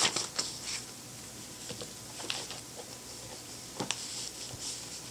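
Faint rustling and a few light, sharp clicks over a steady background hiss in a small room, the sound of something being handled close to the microphone, such as pages being turned.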